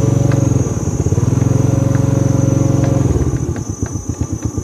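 Small motorbike engine running close by at a steady speed, then dropping back to an uneven idle about three seconds in.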